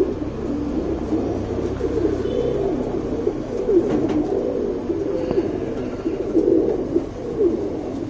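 Several pigeons cooing without a break, their low coos overlapping one another.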